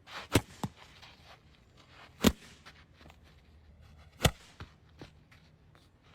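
A few scattered sharp knocks, the loudest about two seconds and four seconds in, over a faint low hum.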